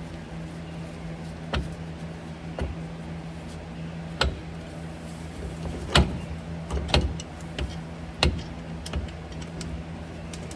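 Scattered sharp metal clinks and knocks of parts and hand tools being handled while a PTO unit is fitted onto a truck transmission, over a steady low hum. The loudest knock comes about six seconds in.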